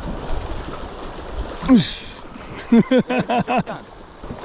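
Steady wind and water noise on an offshore fishing boat. About two seconds in a man's voice gives one falling exclamation, and a second later a quick run of about six short vocal sounds.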